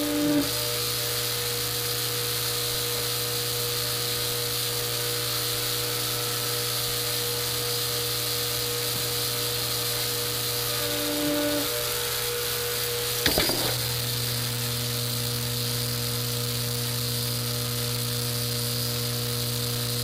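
Steady motor hum from the pull-test rig as it loads a 3/4-inch Spectra/nylon blend climbing sling, broken about two thirds of the way through by a single sharp snap as the sling breaks over a pin, at a peak of about 5,200 pounds. The hum goes on after the break with a slightly different tone.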